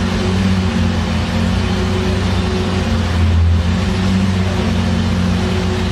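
A car engine running steadily with a low drone, swelling briefly about three and a half seconds in.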